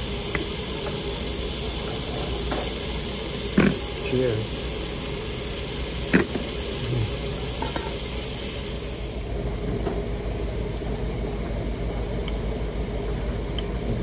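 Sliced meat sizzling on a tabletop Korean barbecue grill, with a couple of sharp clicks from metal tongs. The sizzle falls away about two-thirds of the way through, leaving a steady low hum.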